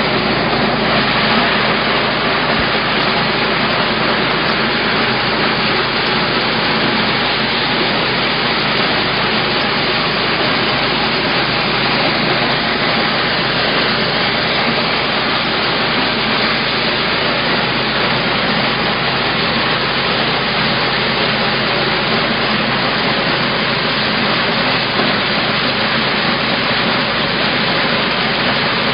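Maize thresher and peeler driven by a small gasoline engine, running steadily while corn cobs are fed through it: a loud, even mechanical noise that holds at one level throughout.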